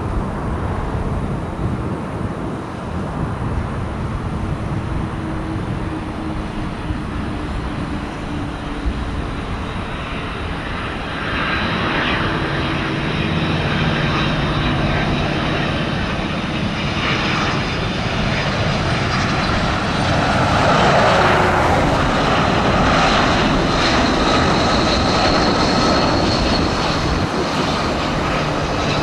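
An airliner's jet engines, a steady rumble with a high whine over it, growing louder about a third of the way in and loudest about two-thirds through as the plane passes.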